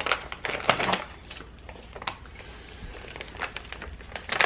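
Plastic treat pouch crinkling and crackling as it is pulled open by hand, with a burst of crackles in the first second, then sparser rustles.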